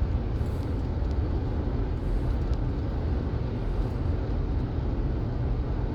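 Steady road and engine noise of a moving car, heard from inside the cabin, with a deep low rumble.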